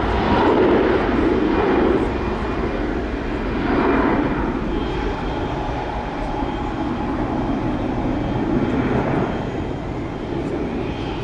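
Jet engines of taxiing aircraft: a business jet passing close by and an Airbus widebody behind it, a steady engine noise that swells and eases a few times. A thin, high, steady whine comes in about halfway through.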